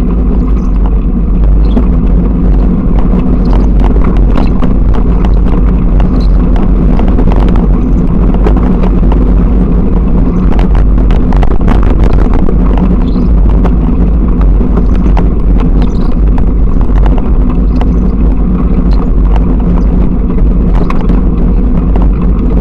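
Bicycle riding over a rough, rutted dirt track, picked up by a bike-mounted action camera: a steady loud low rumble with frequent short rattling knocks as the bike jolts over the bumps.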